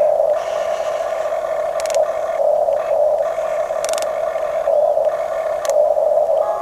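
Electric motors and plastic gearboxes of a hobby-grade RC excavator or bulldozer whining steadily as the model works. Brief sharp scrapes or clicks come three times.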